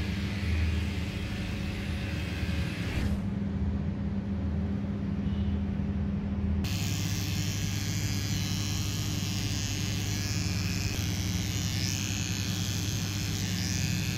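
Electric dog clippers running with a steady motor hum, shaving a dog's coat and, in the latter part, the fur between its paw pads with a small cordless trimmer. The hum changes abruptly about three and about six and a half seconds in.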